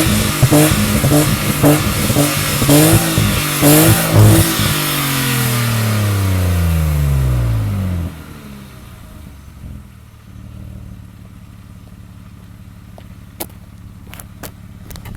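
BMW E34 520i straight-six revved through a WM Sport dual aftermarket exhaust in quick repeated throttle blips, then one longer rev whose pitch falls away over a few seconds before dropping to a steady idle about eight seconds in. A few sharp clicks near the end.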